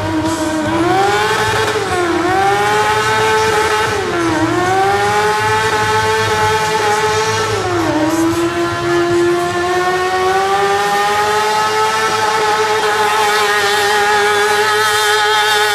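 Motorcycle engine held at high revs during a burnout, the rear tyre spinning and smoking on asphalt. The engine note dips briefly three times in the first half and then holds steady and high.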